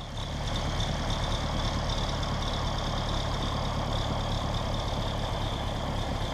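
An engine idling steadily, a low even rumble, with a steady high-pitched tone above it.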